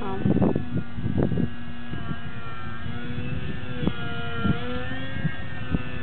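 Skeeter 36 radio-controlled model plane's motor and propeller whining overhead, its pitch drifting slightly up and down with throttle. Wind buffets the microphone, strongest in the first second or so.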